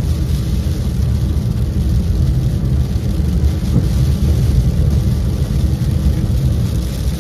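Steady road noise inside a moving car's cabin: a low rumble with tyre hiss from the wet road surface.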